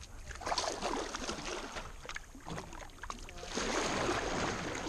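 Kayak paddle strokes on calm water: the blades dip in, splash and drip, swelling with each stroke.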